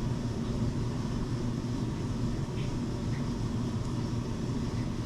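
Steady low mechanical hum of background machinery, with a couple of faint light taps in the middle.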